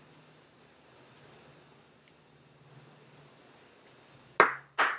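Fingers mixing masala powder through damp roasted peanuts in a bowl: a faint rustle, then two loud, short scratchy strokes near the end.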